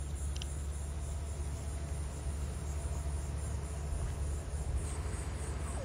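Insects chirping steadily from the surrounding scrub over a steady low rumble, with a faint click about half a second in.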